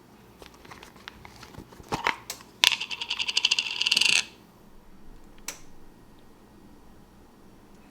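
Kitchen utensils clattering against a pan: a few sharp knocks, then a rapid scraping rattle lasting about a second and a half.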